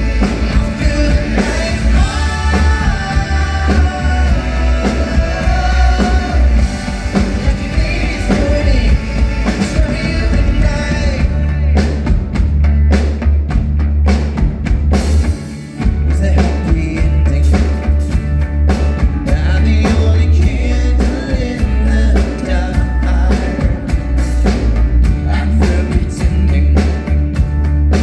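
Live band playing an amplified rock-style song with drum kit, bass and a singing voice. There is a brief break in the music about halfway through.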